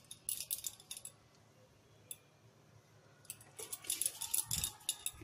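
Light clicks and faint metallic jingling as hands pinch off and roll dough against a steel bowl. They come in two short clusters with a quiet stretch between.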